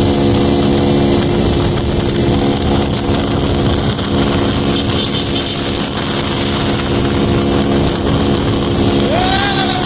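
Honda Pop 110i's small single-cylinder four-stroke engine running at a steady speed while the motorcycle is ridden, its pitch holding level, under a steady rush of noise.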